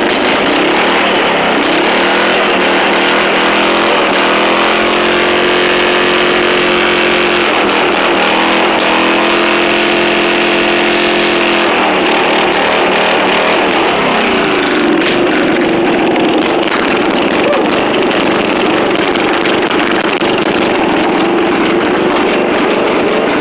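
Riding lawn mower engine with an aftermarket muffler running loudly with the fuel shut off, burning off the gas left in it; its speed wavers up and down.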